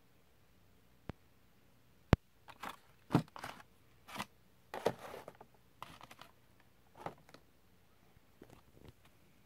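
Blister-carded Hot Wheels die-cast cars being handled and set down: two sharp clicks about one and two seconds in, the second the loudest, then a run of irregular plastic-and-cardboard crinkles and taps.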